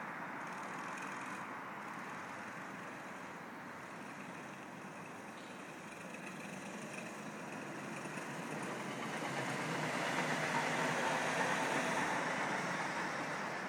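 Steady rumble of a passing passenger train. It swells gradually to its loudest about ten to twelve seconds in, then begins to fade.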